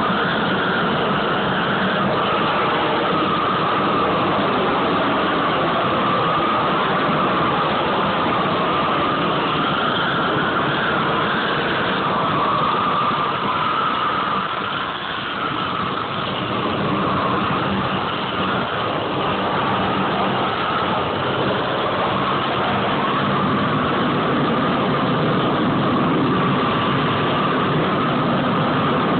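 A row of gas burner flames burning under a steel form, making a steady rushing noise that dips slightly about halfway through.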